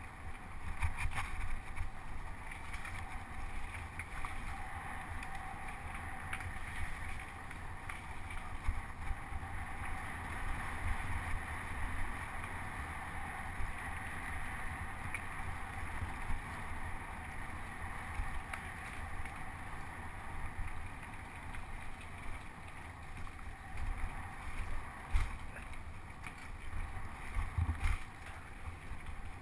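Mountain bike riding fast down a dirt woodland trail: steady wind rush on the camera microphone, with tyres rolling on dirt and the bike rattling and knocking over bumps.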